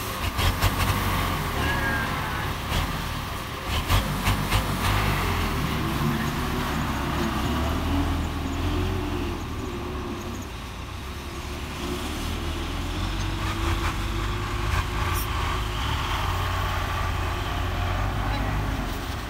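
Belarus MTZ farm tractor's diesel engine running steadily, with a few sharp knocks in the first five seconds.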